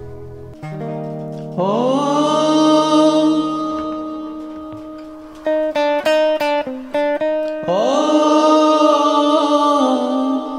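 Gibson Les Paul electric guitar played through a voice-and-guitar multi-effects unit: long held chords that slide up into pitch, with a quick run of short, choppy chords in the middle.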